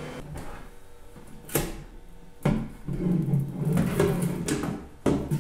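Handling sounds at a 3D printer: a few sharp plastic knocks and clunks, with rubbing between them, as hands open the enclosure and take a printed part off the bed.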